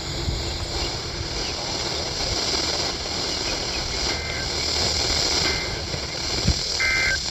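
Steady static hiss from a NOAA Weather Radio receiver with no voice on it. A few faint short tones come through, then one brief two-tone beep near the end, just after a single sharp click.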